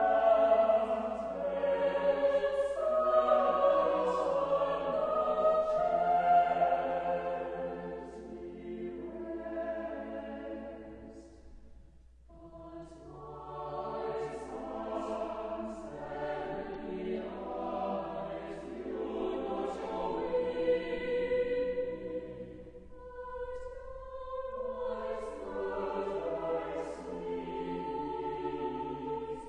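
Choral music laid over the footage: a choir singing long held notes, which fades almost away about twelve seconds in and then swells again.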